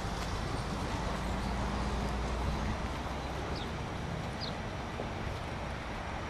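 Steady outdoor background noise with a low drone that stops about three seconds in, and a few faint, short, high chirps.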